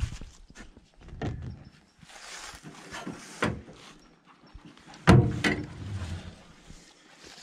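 Handling at the back of a pickup truck: scattered knocks and rustling, then a loud thump about five seconds in with a second knock just after, as the truck bed's tonneau cover is lifted and the tailgate opened.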